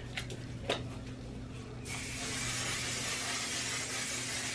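Waterproof makeup setting spray misting onto a face: one steady hiss that starts about two seconds in and lasts about three seconds. Two light clicks come before it.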